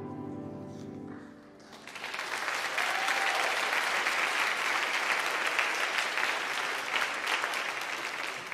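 The last held note of the song fades out, and about two seconds in the audience in the pews starts to applaud, a steady crowd of hand claps that lasts the rest of the time.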